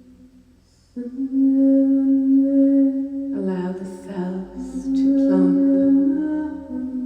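A woman's voice toning light language in long sung notes, each held about two seconds, starting about a second in after a brief lull.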